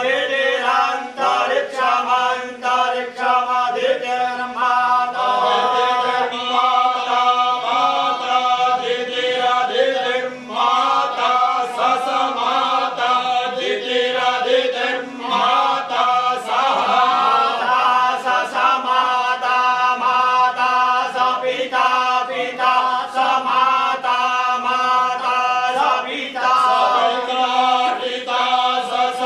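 A group of men chanting Vedic verses together in unison, a continuous chorus of voices. Their hands move with the recitation.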